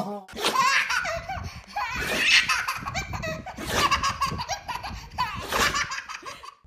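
A baby laughing hard, in several bursts of giggles with short breaks between them.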